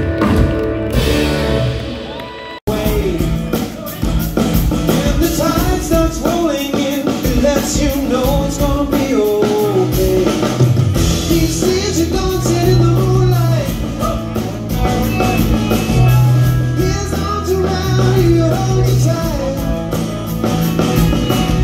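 Live rock band playing: electric guitars, bass and drum kit under a sung lead vocal. About two and a half seconds in, one song breaks off abruptly and another starts.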